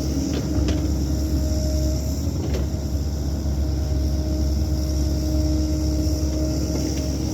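Cat 308 mini excavator's diesel engine running steadily under work, with a steady hydraulic whine and a few light knocks about half a second, a second and two and a half seconds in.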